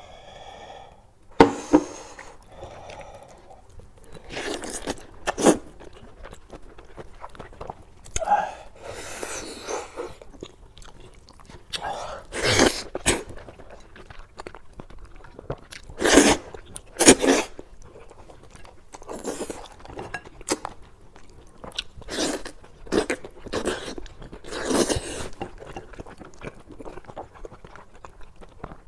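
Close-miked eating sounds: a man biting and chewing meat torn from a cooked sheep's head, wet mouth noises broken by sharp clicks and smacks at irregular intervals.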